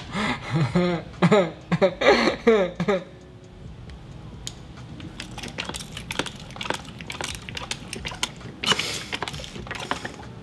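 Two men laughing and shouting loudly for about three seconds. Then comes a run of small quick clicks and squishes as a hand pump on a bottle of transmission fluid is worked, pushing fluid up a hose.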